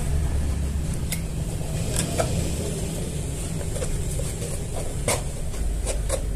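Thin plywood panels of a small speaker box knocking and clicking lightly, several separate taps, as they are pressed and fitted together by hand, over a steady low rumble.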